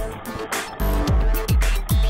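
Background electronic music with a deep, punchy kick drum and bass.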